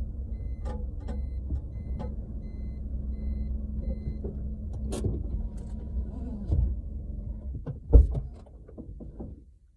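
Driving noise of a Suzuki Swift ZC72S heard from inside the trunk: a steady low rumble with scattered small clicks and knocks, the owner hunting a mystery noise that seems to come when the rear suspension moves. A loud thump about eight seconds in, after which it goes quieter.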